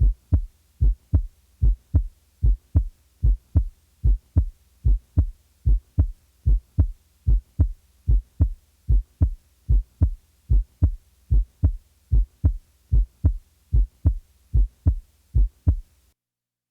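Normal heartbeat heard through a stethoscope: steady lub-dub pairs of the first and second heart sounds, a little over one pair a second, the first sound slightly lower in pitch than the second. The beats stop near the end.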